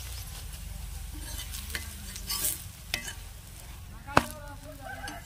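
A dosa sizzling in oil on a flat griddle, with a metal spatula scraping and tapping against the griddle; a few sharp clicks, the loudest about four seconds in.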